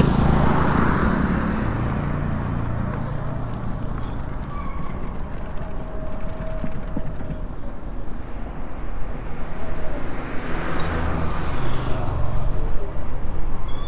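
Motorcycle riding along a road, heard from the rider's camera: a steady engine rumble with wind and road noise. A vehicle passes close at the very start and fades, and another swells past about eleven seconds in.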